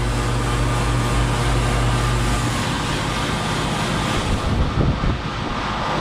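1999 Bryant 4-ton air conditioner condensing unit running: a steady low compressor hum under the rush of the condenser fan. The hum weakens about halfway through, and a few brief bumps come near the end.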